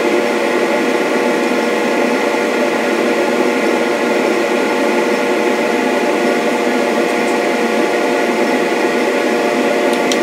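Electric motor of a wood lathe setup running steadily, a constant hum of several steady tones with no change in speed. Two faint ticks near the end.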